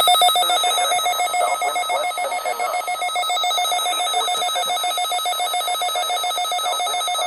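Weather radio receiver's electronic alert alarm set off by a NOAA Weather Radio required weekly test. It sounds as a loud, rapidly pulsing beep that keeps a steady pitch.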